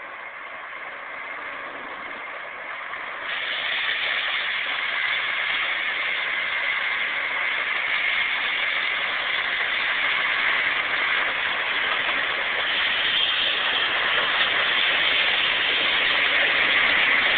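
John Deere combine running, heard from inside the cab: a steady machine noise that gets louder about three seconds in and keeps building slowly.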